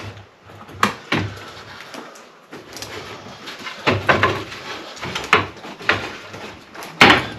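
Irregular knocks and clunks of hands and a tool working at a radiator pipe and valve over a plastic bucket, the loudest knock near the end.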